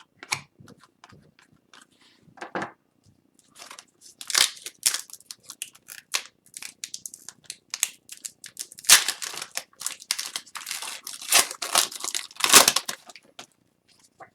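Wrapper of an Upper Deck Series 1 hockey card pack being torn open and crinkled. Scattered crackles at first, then a dense run of ripping and crinkling from about four seconds in, loudest near the end.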